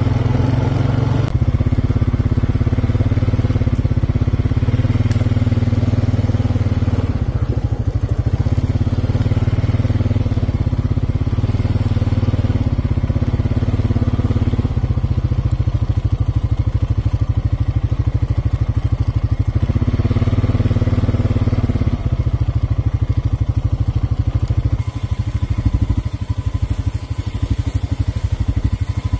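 A small motor vehicle's engine running steadily at low speed, a continuous low drone whose note strengthens in spells a few times before settling back.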